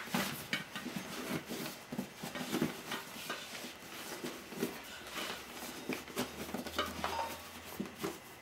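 Rubber inner tube being pushed by hand into a motorcycle tyre on a spoked rim: irregular light rubbing, scuffing and small knocks of rubber against the tyre and rim.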